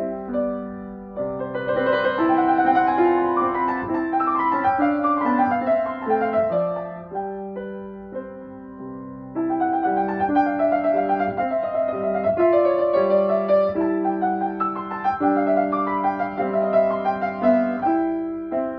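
Steinway & Sons grand piano played with both hands, a flowing melody over steady bass notes. The playing eases to softer held notes around the middle, then comes back louder about half way through.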